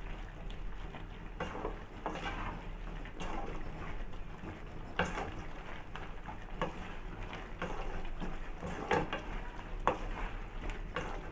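A spoon stirring and scraping in a kadai, mixing spice powders into squid pieces cooking in their own juices, in irregular scrapes and light knocks against the pan over a low steady hum.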